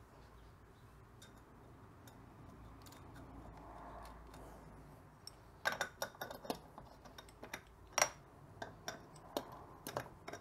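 Light, irregular metallic clicks and ticks, several a second, starting about halfway through, as the nuts holding the Vespa's rear rim to the hub studs are worked and nipped up.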